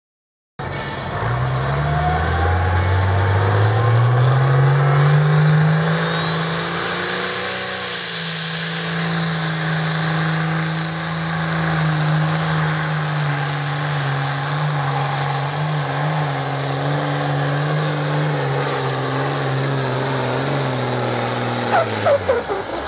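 Pulling tractor's engine under full load during a pull. It cuts in abruptly, its revs climb over the first few seconds with a high whine rising alongside, then it holds steady and winds down sharply near the end.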